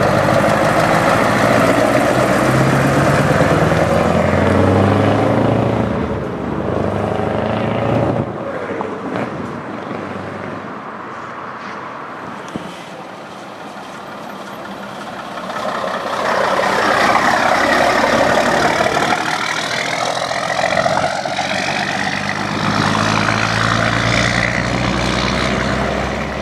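Scania 144 V8 truck accelerating past, its engine note rising over the first few seconds and fading by about eight seconds in. After a quieter spell, a vintage bonneted Scania truck passes loudly from about sixteen seconds in.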